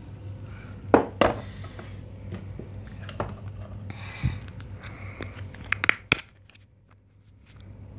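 Handling noise in a kitchen: a few sharp knocks, the loudest about a second in and again near six seconds, with rustling and crinkling between them over a steady low hum. The sound drops out almost completely for about a second and a half after the second knock.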